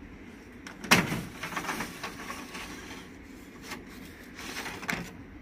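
Drum unit of a Sharp AR-6023N copier being unlatched and slid out of its slot: a sharp plastic knock about a second in, then scraping and rattling as the unit slides, with a few more clicks and a knock near the end.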